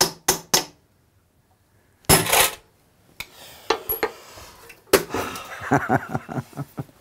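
Three quick, sharp hammer taps on a steel armour plate, then after a short pause a louder clatter and, from about five seconds in, polished steel armour plates clinking and rattling as they are handled.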